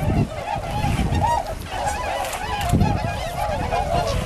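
A dense flock of Bewick's swans, with whooper swans among them, calling all together: many overlapping short honking and bugling calls with no break.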